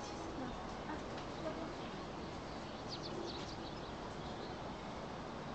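Steady outdoor background hiss with faint bird calls, including a few short high chirps about three seconds in.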